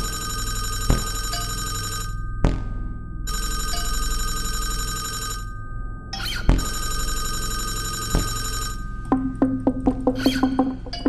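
Electroacoustic music. A bell-like ringing tone comes in blocks of about two seconds with short breaks, over a low hum and struck by sharp thumps. From about nine seconds in, quick clicking and plucked notes take over.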